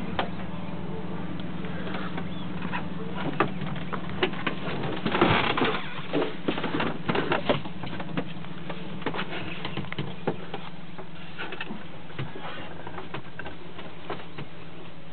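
Plastic bags and boxes rustling and knocking as a boat's storage locker is rummaged through, busiest in the middle, with scattered clicks later. A steady low hum runs underneath.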